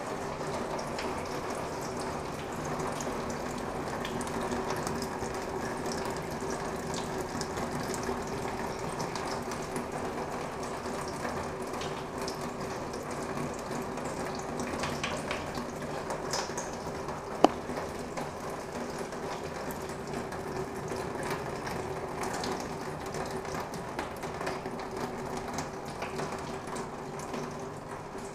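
Water dropping steadily onto a roof of corrugated metal sheets, sounding like rain on a tin roof, with a low steady hum from the electric pumps that circulate the water. One sharp knock about 17 seconds in.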